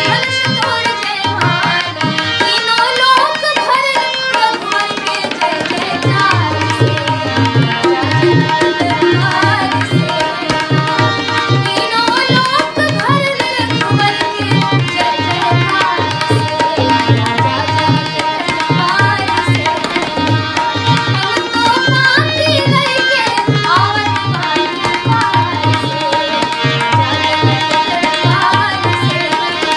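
A girl's voice singing a melodic song, accompanied by a hand drum playing a steady rhythm of low strokes.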